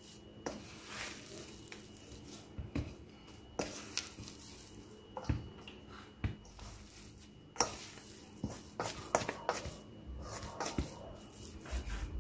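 Spatula folding and scraping a thick, stiff oatmeal cookie dough in a stainless steel mixing bowl by hand: soft squelches with irregular knocks and scrapes against the bowl.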